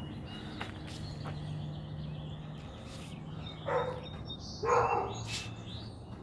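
A dog barking twice, a second apart, over a steady low hum, with birds chirping faintly.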